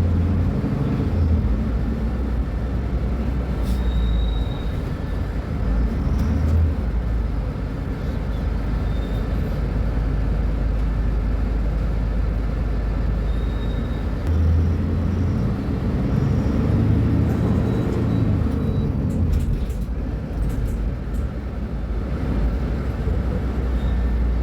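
Mercedes-Benz O500U city bus's diesel engine with Voith automatic gearbox running, a continuous low rumble that swells and eases a few times as the revs change.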